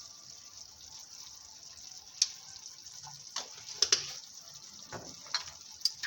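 Meat and onions sizzling steadily as they brown in a tagine, with about five sharp clicks and taps in the second half as spices are added.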